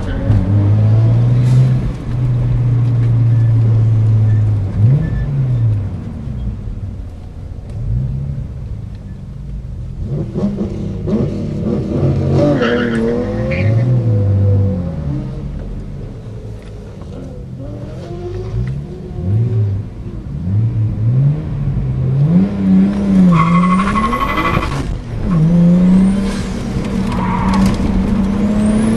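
A competition car's engine heard from inside the car on a flat-out sprint run. The engine note climbs in repeated sweeps and drops back with each gear change and lift for the corners. Brief tyre squeals come near the middle and again about two thirds of the way through.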